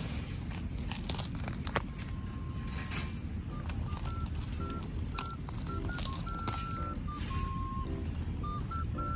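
Steady low outdoor rumble with a few sharp snaps. About a third of the way in, a simple background melody of short high notes begins.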